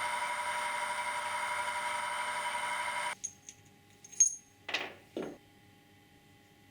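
An electric power tool's motor running at steady speed with a high whine, cutting off abruptly about three seconds in. Then a few sharp clicks, one loud, and two short rubbing scrapes.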